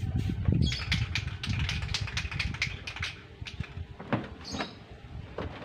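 Handling clatter as a paper-covered lion-dance head is lifted and set down on its stand: a quick run of clicks and rattles over a low rumble, then two short squeaks.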